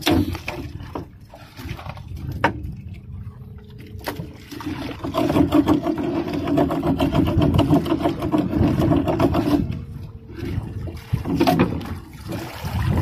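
Wet gillnet being hauled in over the side of a small wooden outrigger boat, with scattered knocks and scrapes against the hull. From about five seconds in until nearly ten seconds, a steady droning hum with a rapid pulse is the loudest sound.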